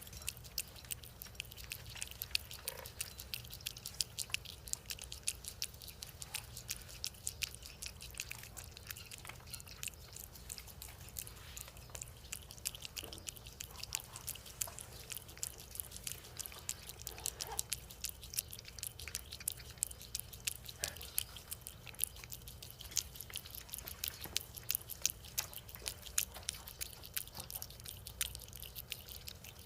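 Cats eating wet pâté: a steady stream of fast, wet smacking and chewing clicks that does not let up.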